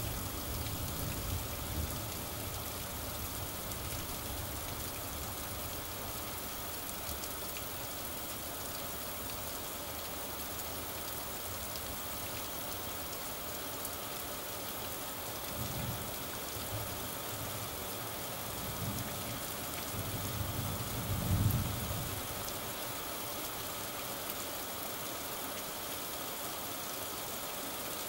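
Steady rain hissing down, with low rolls of thunder in the background: a few swells, the loudest about three quarters of the way through.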